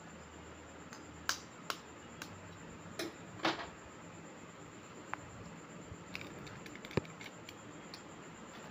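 An egg being knocked against the rim of a bowl to crack it open: scattered sharp taps and clicks, the loudest about three and a half seconds in, with lighter ticks later on.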